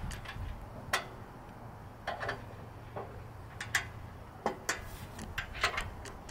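Scattered sharp clicks and taps of a metal propane adapter fitting being handled and pushed onto the griddle's gas inlet, at irregular intervals.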